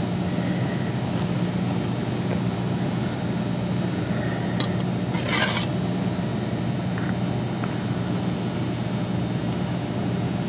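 Steady low hum throughout, with a short scrape about five seconds in as a bench scraper is drawn across icing on a silicone lace mat on a metal baking sheet.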